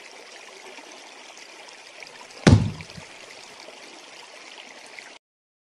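Steady trickling of water in an aquarium, with one loud thump about two and a half seconds in. The sound cuts off abruptly near the end.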